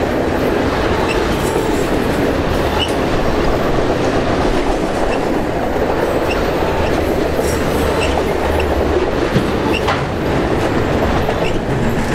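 Autorack freight cars rolling past close by: a steady rumble of steel wheels on rail, with short high squeaks here and there.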